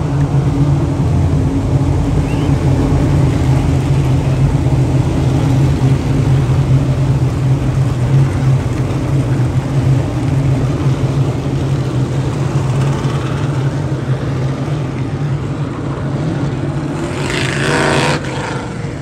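Dirt modified race cars' V8 engines running together on track in a steady, loud drone. Near the end a louder, higher sound lasts about a second and cuts off suddenly.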